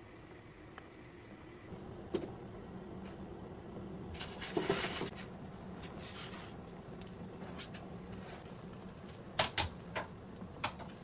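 Kitchen handling sounds over a steady low hum: a single knock about two seconds in, a brief rustling scrape around the middle, and a quick run of sharp clicks and knocks near the end, like utensils or cupboard doors being handled.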